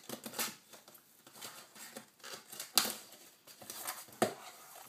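Cardboard shipping box being cut and opened by hand: irregular snips, scrapes and rustles of box and tape, with sharp clicks about three seconds in and again just after four seconds.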